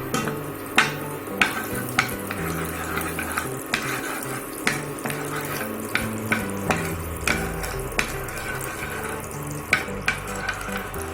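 A metal ladle stirring and knocking against a kadai of hot oil and ghee, with frying sizzle underneath. The sharp knocks come irregularly, roughly one or two a second.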